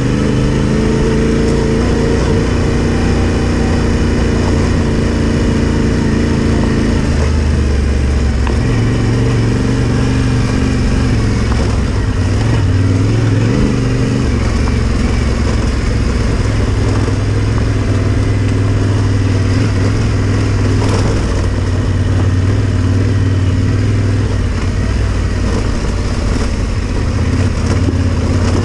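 Yamaha Ténéré 700's parallel-twin engine running as the motorcycle is ridden along a dirt trail, its note holding steady for stretches and changing pitch a couple of times with throttle and speed.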